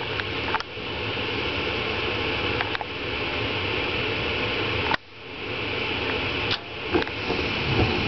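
Lennox G60UH two-stage gas furnace's draft inducer fan running with a steady rushing noise during the ignition sequence, as the hot surface igniter glows and the gas burners light. A few sharp clicks are heard, and the level dips suddenly about five seconds in.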